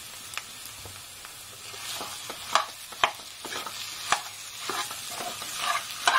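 Metal spatula scraping and clacking against a metal kadai as mashed potato is broken up and stirred into frying masala, over a low sizzle. The clacks start about two seconds in and come every half second to second.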